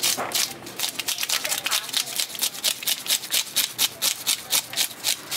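Plastic fish scaler scraping scales off a grouper's skin on a cutting board, in quick, even strokes of about three to four a second.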